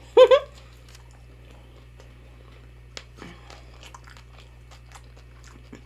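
A woman chewing fried fish and chips close to the microphone: a brief voiced hum right at the start, then quiet mouth sounds with scattered small crunches and clicks, one sharper click about three seconds in.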